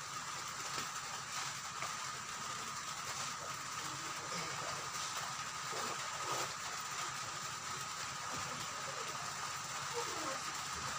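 Steady background hiss with a faint steady high whine, and a few faint brief sounds scattered through it.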